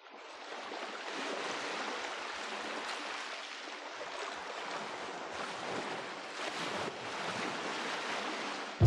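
Ocean surf washing on a shore: a steady hiss of waves with slow surges, fading in at the start and cutting off suddenly near the end as guitar and bass music comes in.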